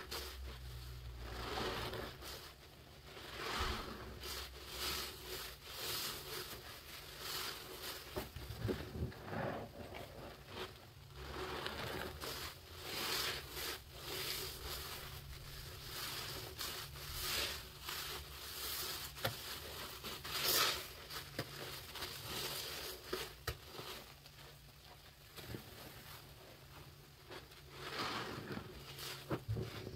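Sudsy sponge squeezed and wrung by rubber-gloved hands in a sink of foamy water: repeated wet squishes, unevenly spaced.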